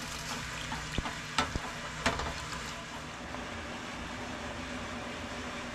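Steady hiss of a pot heating on the stove, with a few light knocks and clicks of kitchen utensils in the first two seconds.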